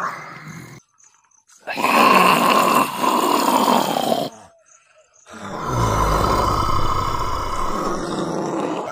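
Zombie growls and roars: long noisy bursts broken by two short silences, the last with a deep low rumble under it.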